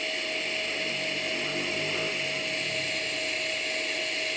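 Scratch-start TIG welding arc from a Tenya NB-200 mini inverter welder, fusing stainless steel: a steady hiss with a constant whine over it.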